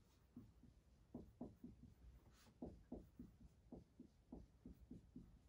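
Faint dry-erase marker strokes on a whiteboard as letters are written: a quick, irregular run of short soft strokes, several a second, with one brief hiss about two and a half seconds in.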